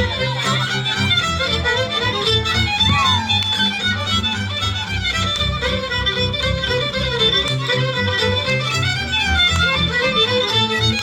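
Live folk band playing an instrumental tune in British Isles style, the fiddle carrying a busy melody over a steady low accompaniment.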